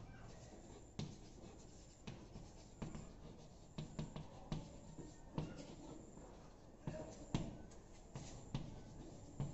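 Chalk writing on a blackboard: irregular taps and short scrapes of the chalk, about one or two strokes a second.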